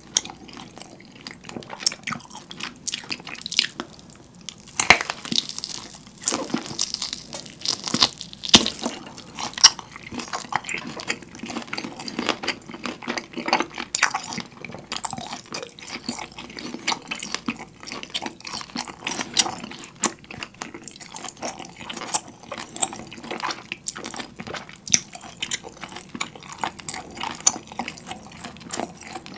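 Close-miked chewing and biting of a large whole seared rare beef steak held in the hands: wet, sticky mouth sounds with many small clicks and smacks, and the meat tearing as it is pulled off with the teeth. The wet crackling is busiest in the first third.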